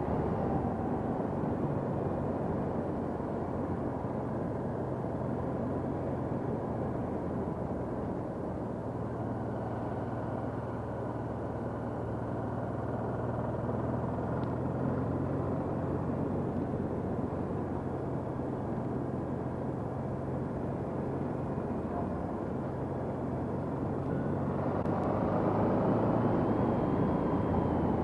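Honda NT700V Deauville's V-twin engine running steadily under the rush of wind on a helmet-mounted microphone, getting louder near the end.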